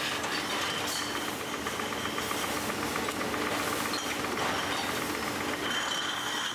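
Bottle-washing machine running with empty glass beer bottles in its carrier pockets: a steady mechanical hum with a fast, even rattling clatter.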